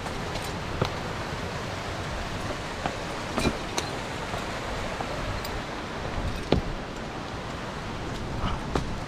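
Mountain stream water rushing steadily, with a few sharp clicks and knocks scattered through it, the loudest about two-thirds of the way in.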